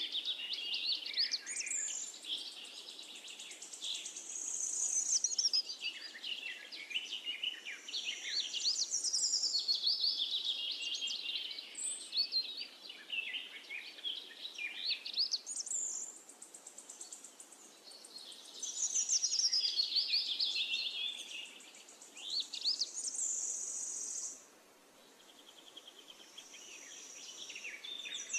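Songbirds singing and chirping, many overlapping trills and whistles rising and falling in pitch, with a brief lull near the end.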